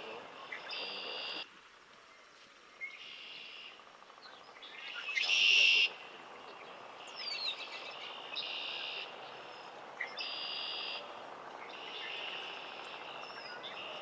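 Red-winged blackbirds singing: short buzzy trills repeated every one and a half to two seconds, the loudest about five seconds in, with a few thin whistled notes between them.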